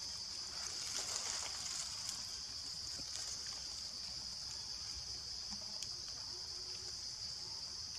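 Steady high-pitched drone of forest insects, with a few faint light ticks and rustles.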